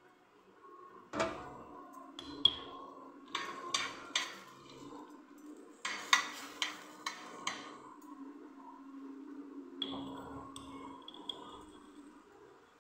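Pumpkin seeds being stirred in a metal pan as they roast, a run of sharp clinks and knocks of the utensil against the pan, loudest about two and a half and six seconds in.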